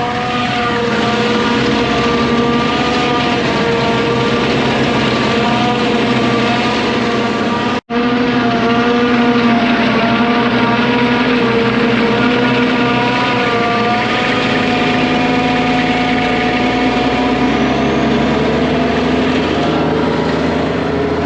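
A heavy vehicle engine running steadily at a near-constant speed, its pitch wavering only slightly. The sound drops out for an instant about eight seconds in.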